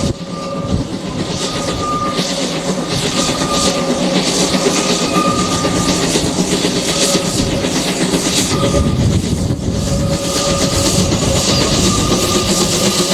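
Narrow-gauge Beyer-Garratt steam locomotive NG.130, a 2-6-2+2-6-2 articulated engine, working a train uphill: steady heavy exhaust and the carriages running over the rail joints, with short high squeals coming and going.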